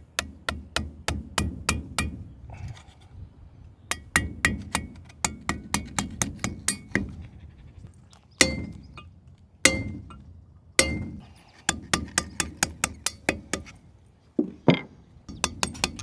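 Hammer blows on a brass drift set in the hub of a steel multi-groove combine pulley: runs of sharp metallic taps, two or three a second. Three heavier blows near the middle leave the pulley briefly ringing.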